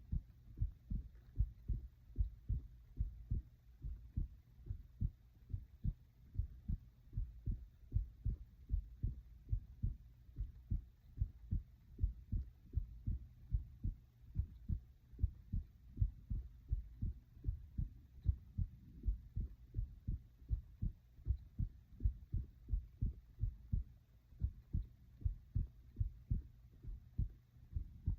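A person's heartbeat heard close up: steady, evenly spaced low thumps in a regular rhythm.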